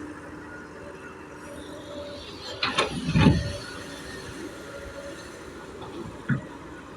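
Excavator engine running steadily. A loud, heavy thud and clatter come about three seconds in, and a lighter knock near the end.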